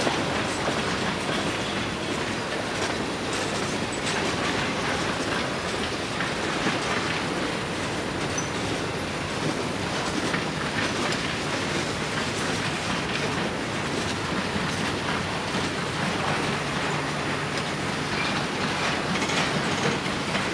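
Freight train cars rolling past, hoppers and a refrigerated boxcar: a steady rumble with the clatter of steel wheels over the rail joints.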